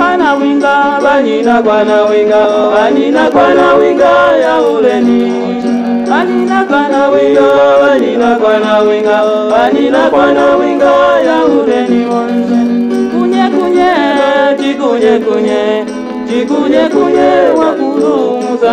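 A song with voices singing in an African language, the melody bending up and down over a low held note.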